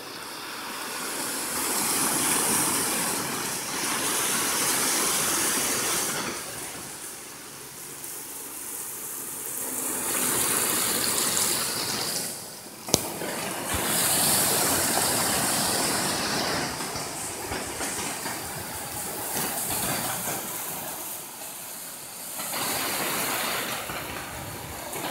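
Small waves washing in over a rocky, shallow shore, the rush of water swelling and fading every few seconds. A single sharp click about halfway through.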